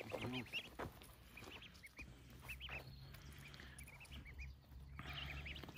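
Wild ducklings peeping: short, high, faint chirps coming in little clusters, one after another.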